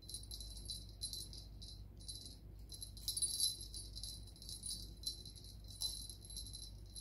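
A small jingle bell jingling in quick, irregular shakes, loudest about three and a half seconds in.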